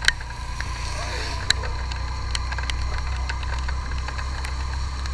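Motorcycle riding on a wet road in light rain: a steady low rumble of engine and wind, with scattered sharp ticks of raindrops striking the camera.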